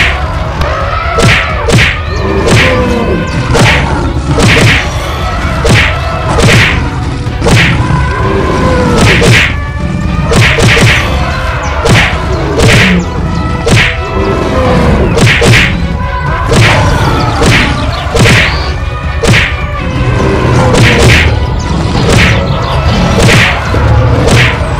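Cartoon fight sound effects: whack and thump hits repeating about one to two times a second, with pitched sounds sliding up and down between them.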